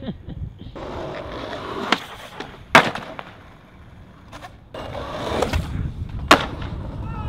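Skateboard wheels rolling on concrete, broken by sharp cracks of the board striking the ground. The loudest crack comes about three seconds in and another comes near the end, each after a stretch of rolling.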